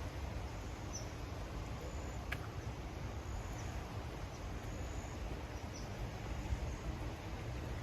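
Outdoor riverside ambience: a steady low rumble with faint, short high chirps every second or so, and a single sharper chirp about two seconds in.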